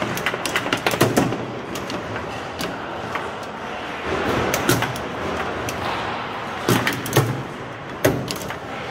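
Foosball table in play: sharp clacks and knocks as the ball is struck by the plastic figures and the rods are slid and spun. A cluster of loud knocks comes about a second in, and more come near the end. Steady background noise sits underneath.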